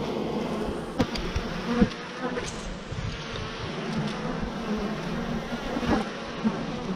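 Honeybees buzzing steadily right at the microphone, a dense cluster bearding at the hive entrance of an overcrowded colony. A few short knocks stand out over the hum, the loudest about one and two seconds in.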